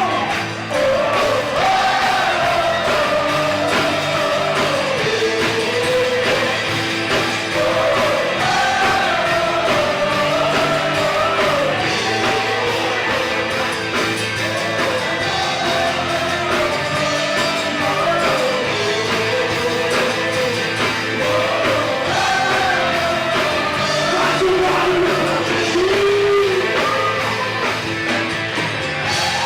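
Live worship band playing a steady rock-style song, with a wavering lead melody sung over sustained chords.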